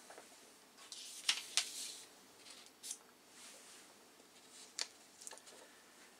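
Faint scattered clicks and soft rustles, a few of them sharper ticks.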